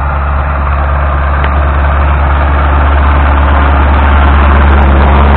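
Tractor diesel engine running steadily while mowing, growing louder as the tractor comes close.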